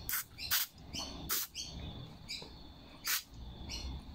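Aerosol carb cleaner sprayed in short hissing squirts through a thin straw into the nozzle and jet of a plastic lawnmower-engine carburetor, forcing cleaner through its tiny pilot holes. There are four squirts, each a fraction of a second long. A bird chirps at intervals in the background.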